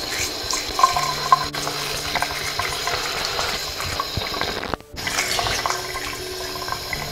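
Tap water running steadily and splashing over a small metal faucet aerator part held in the stream, into a glass vessel sink. The sound drops out for a moment about two-thirds of the way through.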